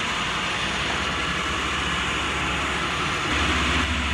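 Concrete mixer truck's diesel engine running, a steady low rumble with hiss that grows a little louder about three seconds in.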